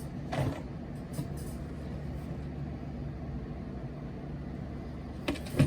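Steady low background rumble, with a few sharp handling clicks and knocks near the end.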